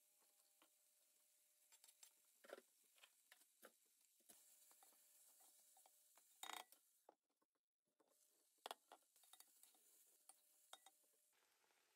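Faint, scattered clicks and knocks of a wooden spatula stirring and tossing noodles in a speckled nonstick pot, with the sound briefly cutting out about seven seconds in.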